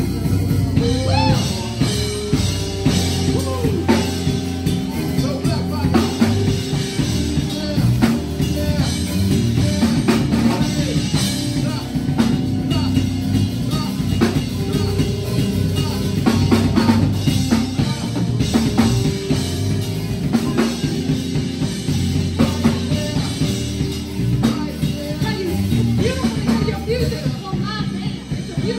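Live band music driven by a drum kit, with bass drum, snare and rimshots struck over held low notes.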